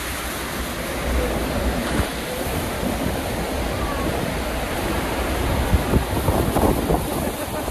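Steady roar of Niagara Falls' Horseshoe Falls pouring down close by, mixed with wind buffeting the microphone in one dense rush with a deep rumble underneath. A couple of brief thumps come about six seconds in.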